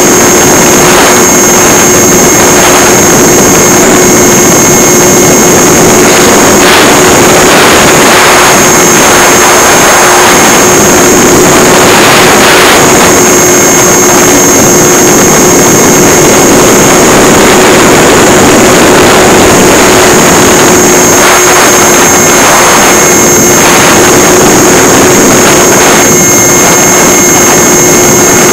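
Electric motor and propeller of a Multiplex EasyStar RC plane running steadily in flight, heard through a camera fixed inside the fuselage: a constant hum with a high whine above it, under heavy wind rush over the microphone. Very loud and overdriven throughout.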